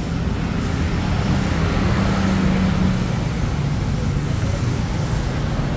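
A motor vehicle engine running steadily in the background, its hum rising a little in pitch about a second in and easing again after three seconds.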